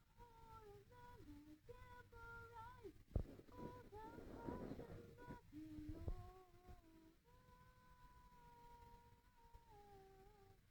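A person faintly humming long, level held notes that step from pitch to pitch, with two sharp knocks about three and six seconds in.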